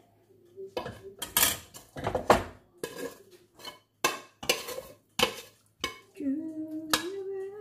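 Metal spoon and fork scraping and clanking against a glass baking dish and a stainless steel pot, a run of sharp irregular clinks. Near the end a woman starts humming a held note.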